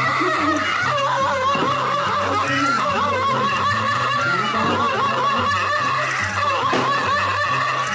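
Snickering laughter over background music with a steady, repeating bassline.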